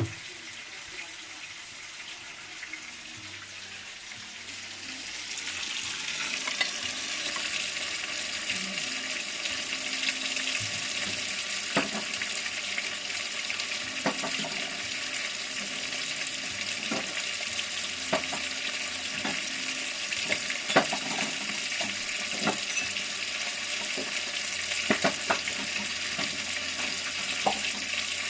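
Food sizzling in hot oil in a pan, growing louder about five seconds in, with scattered sharp clicks of spattering and a utensil against the pan.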